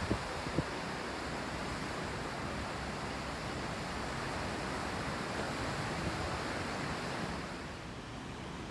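Steady ocean surf washing on the beach, with wind on the microphone.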